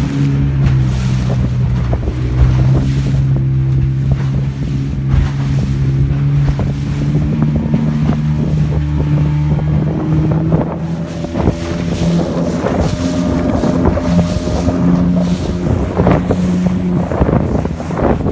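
A small fibreglass fishing boat's motor running steadily under way, with water rushing along the hull and wind on the microphone. In the second half the engine note rises a little and there is more splashing and slapping of water against the hull.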